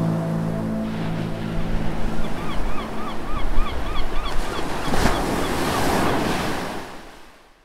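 Ocean surf washing in, under a held music chord that dies away in the first couple of seconds. Midway comes a quick run of high chirps, then a bigger wave surges about five seconds in before the sound fades out near the end.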